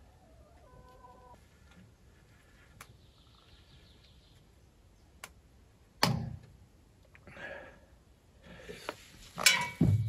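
Lumag HC10 wood chipper being tipped over by hand to drain its engine oil: a sharp metal clunk about six seconds in, then a rustle and a cluster of heavier knocks ending in a low thud near the end.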